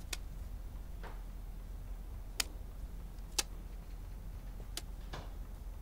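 Slow footsteps: a few sharp, unevenly spaced clicks about a second apart, over a low steady hum of room tone.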